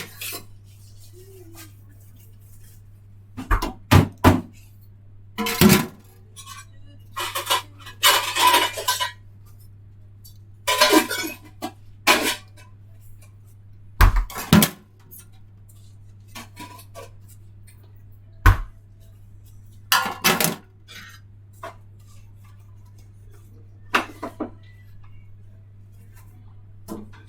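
Pots, pans and metal utensils being handled: scattered clatters, knocks and clinks every second or two over a steady low hum.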